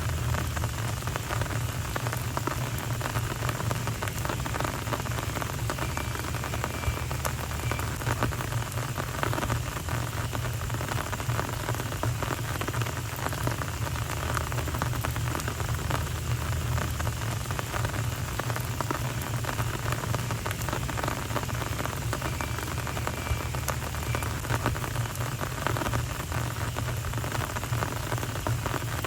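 Steady rain falling on a paved street: an even hiss of many small drops ticking on the surface, with a steady low hum underneath.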